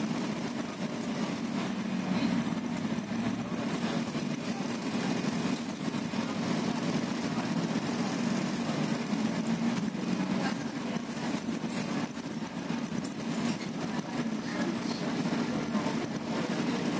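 Interior noise of a moving double-decker bus heard from the upper deck: a steady low engine hum with road and body noise.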